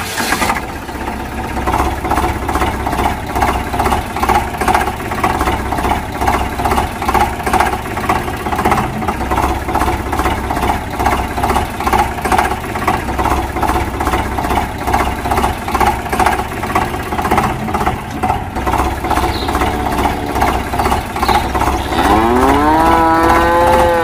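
Tractor engine running steadily with an even, rapid chug. Near the end a cow moos once, a long call that rises and then holds.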